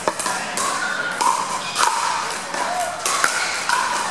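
Pickleball paddles striking a hard plastic ball: several sharp, hollow pocks roughly a second apart as a point is served and rallied, over background chatter in a large echoing hall.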